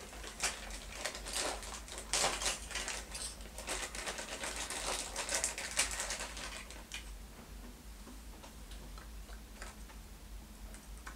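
A plastic parts bag crinkling and small hardware clicking as parts are handled, in a dense run of rustles and clicks that thins after about seven seconds to a few light ticks against the guitar body.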